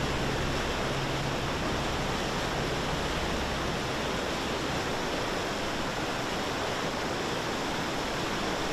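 Fast-flowing floodwater rushing in a strong torrent, a steady even roar of water. A low hum sits under it for the first few seconds.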